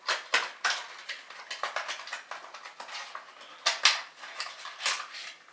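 Stiff plastic CPU packaging tray being handled and prised open: a quick run of sharp plastic clicks and crackles, loudest about four seconds in.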